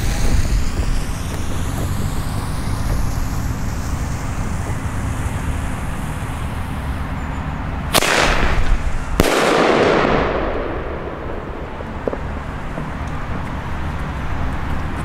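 Nico Flashbang airbomb firework. About eight seconds in it launches from its tube with a sharp pop and a rush of sparks. A little over a second later the shell bursts with a bang that rings on and fades over a couple of seconds.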